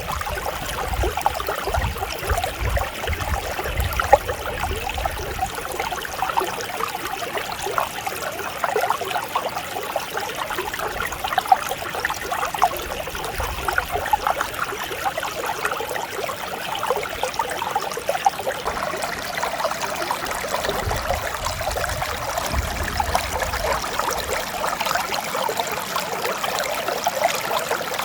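Mountain stream water flowing and babbling steadily over rocks, with a continuous gurgling splash.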